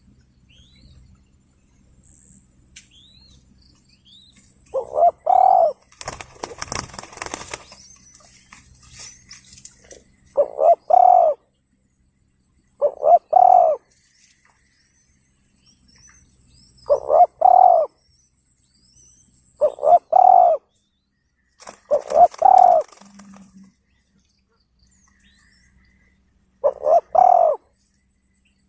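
Dove cooing: short phrases of two or three low coos, repeated seven times every few seconds. A high steady whine runs through the middle, with faint high chirps from small birds and two brief noisy rushes, about six seconds in and around twenty-two seconds.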